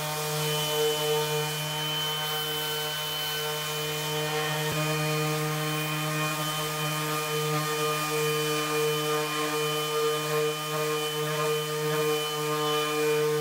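Bosch GEX 18V-125 cordless random orbital sander running steadily while sanding a wooden board: a steady motor hum with the hiss of the sanding disc on the wood.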